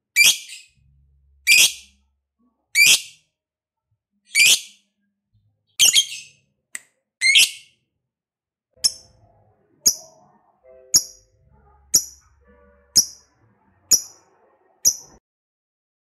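Lovebird calling in a series of separate shrill, sharp calls: six strong ones about a second and a half apart, then, from about nine seconds in, seven shorter, thinner calls about once a second.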